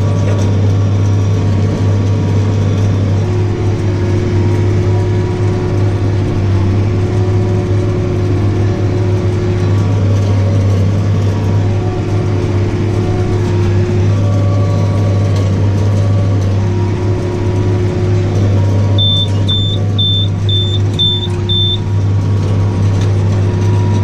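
Tractor engine running steadily under load while pulling and driving a Welger round baler, heard from inside the cab, with a whine that comes and goes. Near the end an in-cab monitor beeps six times, about two a second.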